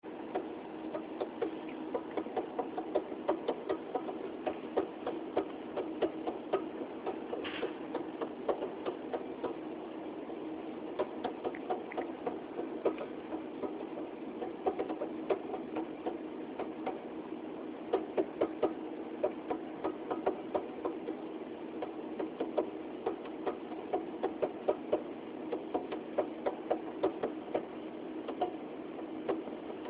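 Refrigerator running with a steady hum and rapid, irregular clicking and ticking, several clicks a second and sometimes in bunches: an unidentified abnormal noise from the fridge.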